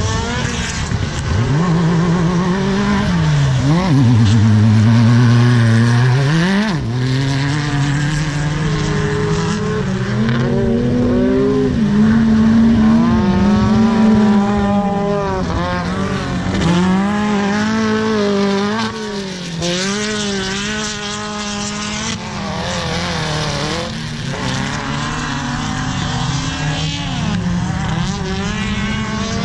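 Several off-road race buggy engines racing on a dirt track, revving hard with pitch climbing and dropping over and over as they accelerate, shift and lift off for corners.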